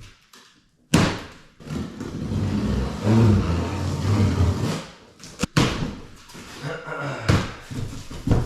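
A sharp thump about a second in, then scraping and rustling and several more knocks: the pit bike's shipping box being handled and opened.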